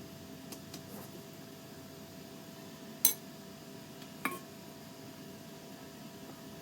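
Kitchenware clinking: a few light ticks, then two sharp knocks about three and four seconds in, the second ringing briefly, over a steady faint hum.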